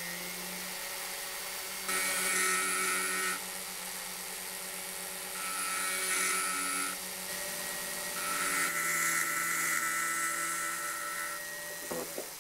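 Jeweller's flexible-shaft rotary tool with a ball burr running with a steady whine while carving sterling silver. It has three spells of louder, higher-pitched cutting as the burr works the metal, the last one the longest.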